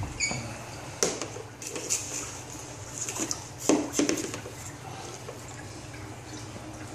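Aquarium water trickling and splashing over a steady low hum. A few sharp knocks and clicks fall in the first four seconds, the loudest a little before the middle.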